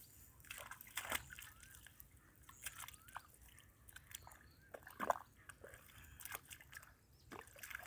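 Dry rice straw and grass on a ditch bank crackling and rustling in short, irregular bursts as a hand pushes through it.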